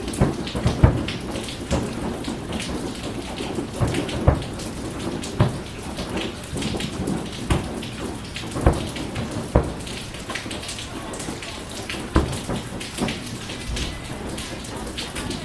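Fireworks exploding: irregular bangs and booms, about one or two a second, over a steady crackling hiss.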